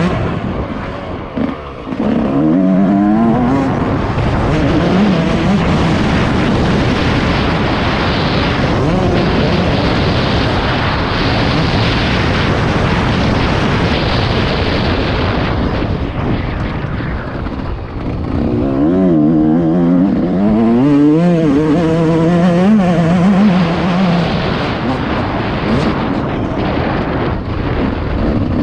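Yamaha YZ 144's two-stroke single-cylinder engine revving under load on a motocross ride, its pitch climbing and dropping as the throttle opens and closes and the gears change. The revs climb clearly a couple of seconds in, and again in a longer run of rising and falling revs past the two-thirds mark.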